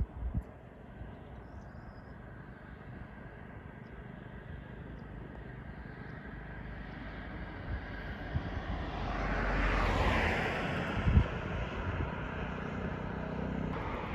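A vehicle passing by: its noise swells over several seconds, is loudest about ten seconds in, then fades. There are a few dull thumps, one near the start and one shortly after the peak.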